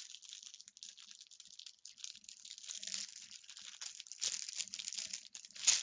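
Clear plastic packaging bag of embroidery floss crinkling and crackling irregularly as hands handle it, with a couple of louder crackles near the end.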